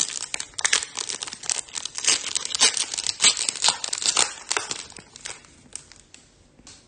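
Foil wrapper of a Topps Chrome trading-card pack being torn open and crinkled. The crackling is dense for about five seconds, then dies down.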